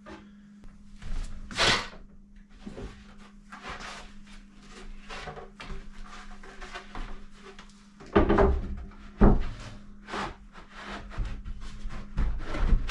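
Wooden cabinet parts knocking and scraping as a back panel is fitted into a cabinet frame by hand, with a few louder thumps in the second half.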